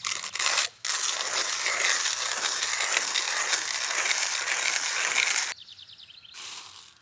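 Manual coffee grinder grinding beans as its crank is turned: a steady grinding that breaks off briefly near the start and stops about five and a half seconds in. It is followed by a short run of light ticks and a brief rustle as the grounds are tipped into a paper filter.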